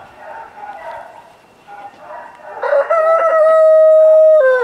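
Chickens chattering softly, then a rooster crows once, loud: a long call that rises, holds steady, and drops at the very end.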